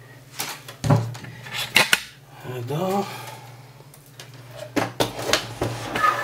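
Metallic clinks and knocks of small hard objects being picked up and handled on a wooden workbench, in a cluster near the end, over a steady low hum.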